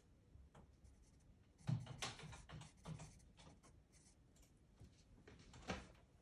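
Pastel pencil scratching short strokes on textured pastel paper, a few scattered faint strokes, the strongest about two seconds in and again near the end.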